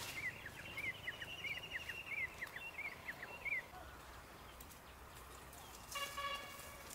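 A bird repeats a short chirp about every two-thirds of a second for the first three and a half seconds, over faint outdoor background noise. About six seconds in, a brief pitched call with a stack of overtones sounds once.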